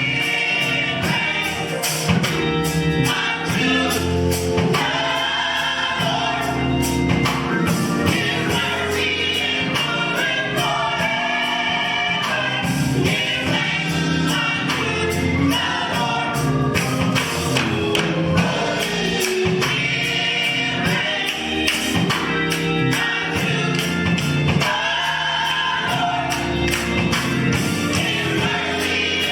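Gospel choir singing over a band, with a steady tambourine beat.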